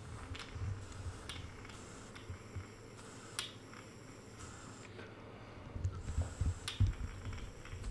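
Honda CX500 carburettor bank being handled and blown through by mouth to test whether the float valve seals. A few sharp clicks from the carbs in the hands, then a run of low breathy puffs near the end.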